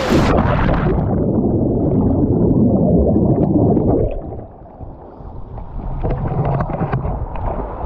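Swimming strokes splashing water over a handheld waterproof camera that dips in and out of the sea, heard as a sharp splash and then dense, muffled sloshing for about four seconds. It then drops to quieter lapping with small clicks and ticks.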